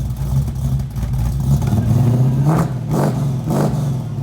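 A car engine running loudly with a deep, uneven note, revved in three quick blips in the second half.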